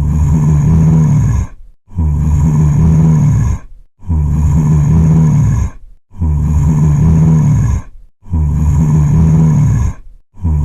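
Zombie groan sound effect: a low, guttural moan about a second and a half long, the same clip repeating about every two seconds with short silences between, about five times.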